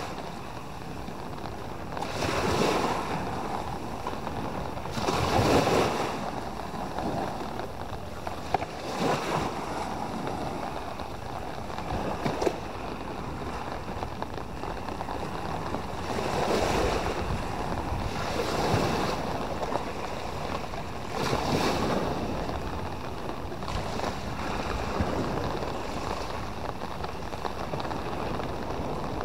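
Small sea waves washing up onto a sandy beach, each swell rising and falling every few seconds.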